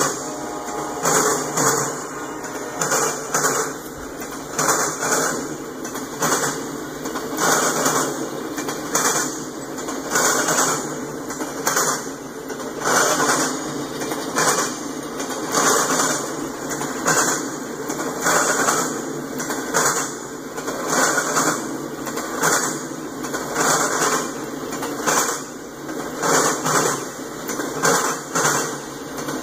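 Autorack freight cars rolling past, their steel wheels clacking over the track in a steady rhythm of about one clack a second over a continuous rolling rumble.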